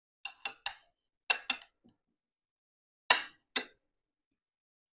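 Metal cutlery clinking against ceramic dishes while eating: about eight sharp, short clinks in three small groups, the loudest about three seconds in.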